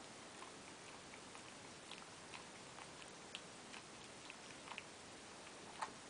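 Faint, irregular light clicks, roughly one or two a second, over a quiet background hiss, with one sharper click near the end.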